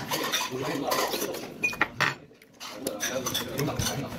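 Metal cutlery clinking and tapping against plates and small dishes, a scatter of short sharp clicks with a brief lull about two seconds in.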